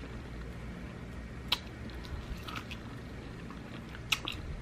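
Chewing and wet mouth sounds of someone eating, with a few brief sharp smacks, the clearest about one and a half and four seconds in.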